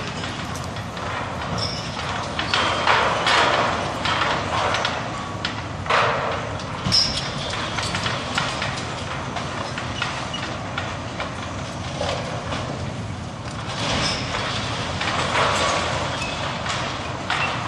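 Demolition of a brick power plant building: irregular clanks and knocks of metal and masonry over the low, steady running of heavy machinery, the sharpest impacts about six and seven seconds in.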